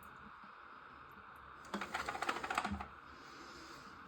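A quick run of light clicks and rattles, about a second long, a little under halfway in: small plastic push-button flush-valve parts being handled.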